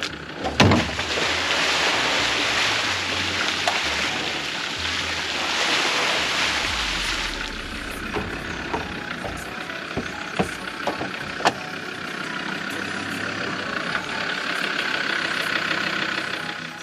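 An old Land Rover's engine running steadily. A loud rushing noise lies over it for the first seven seconds or so, and there are a few sharp knocks later on.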